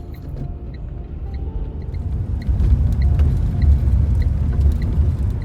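Car driving, its engine and tyre rumble loud and low, growing louder about two seconds in. Faint high ticks repeat about three times a second over it.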